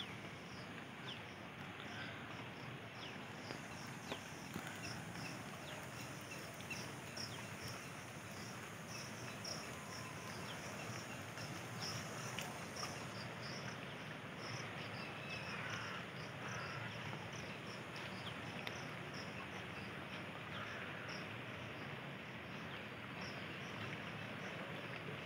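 Insects chirping in quick, regular pulses, high-pitched, over a steady rushing hiss of fast-flowing floodwater.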